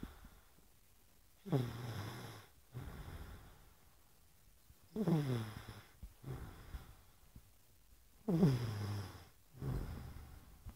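Snoring in deep sleep: three snores about three and a half seconds apart, each dropping in pitch as it goes, with a softer breath out after each one.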